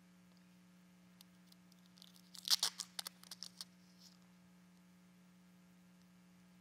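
Communion bread being handled: a burst of crackling and rustling about two seconds in, lasting a second and a half, over a faint steady hum.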